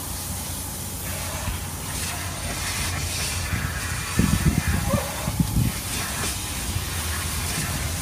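Car wash vacuum hose drawing air with a steady hiss, with uneven low rumbling from about four seconds in.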